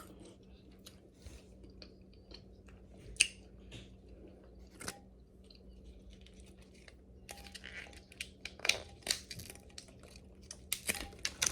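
A person eating king crab legs close to the microphone: chewing with scattered clicks and crunches of shell. The clicks are sparse at first and come thicker in the second half, over a faint steady hum.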